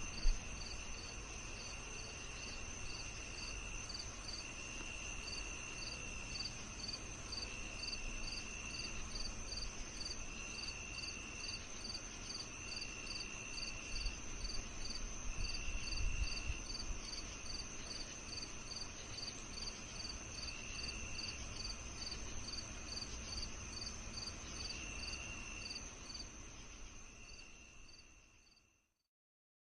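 Night ambience of crickets and other insects: a steady high trill, a row of evenly repeated chirps, and a lower trill that comes and goes in phrases of a second or two, over a faint low rumble. It fades out near the end.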